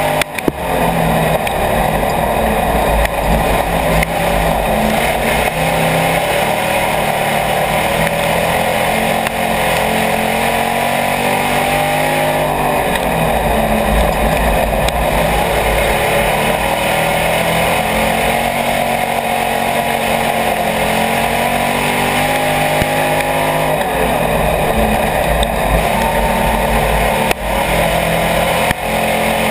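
IMCA Hobby Stock race car's V8 engine running hard under racing load, loud inside the cockpit. The engine note dips twice and climbs back up as the car slows for the turns and accelerates out of them.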